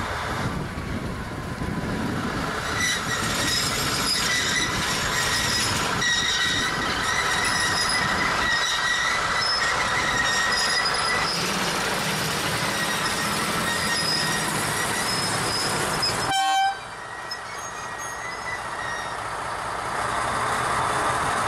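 Wheels of a string of open coal wagons squealing in several steady high tones as a PKP Cargo SM42 diesel shunting locomotive moves them slowly, with the engine rumbling underneath. The squeal cuts off suddenly about three-quarters of the way through, leaving a quieter rumble that builds again near the end.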